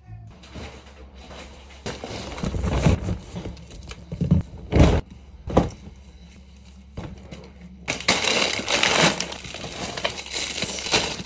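Plastic grocery packaging crinkling and rustling as packets are handled, with a few sharp knocks about halfway through, then denser crinkling near the end.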